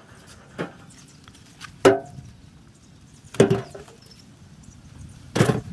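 Heavy palmyra (sugar palm) fruits dropped into a wheelbarrow tray: one faint knock, then three loud thuds with a short ring, about a second and a half apart.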